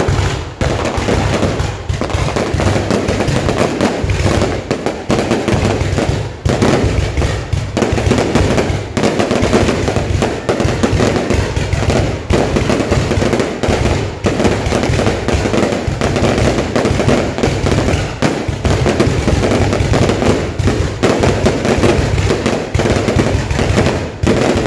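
Fireworks display: a dense, continuous barrage of aerial shells bursting and banging over a deep rumble, with no pause.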